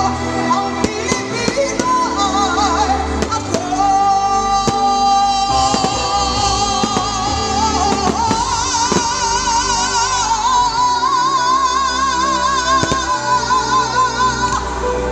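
A song played loud: a singing voice holding long notes with wide vibrato over instrumental backing with a steady beat.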